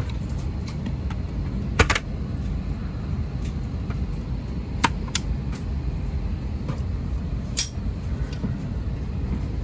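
Steady low rumble of a parked airliner cabin, with the plastic clicks and knocks of a seatback tray table being unlatched, lowered and stowed again: the loudest, a double click, about two seconds in, then two lighter clicks near the middle and one more later.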